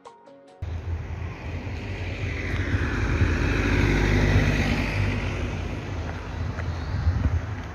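Music cuts off just under a second in, giving way to a motor vehicle running with road noise, which swells in the middle and eases off toward the end.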